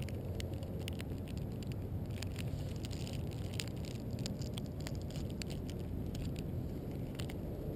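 Quiet, steady low rumble of water and wind, with faint, scattered small clicks and rustles as the angler handles a plastic package of jigheads in a float tube.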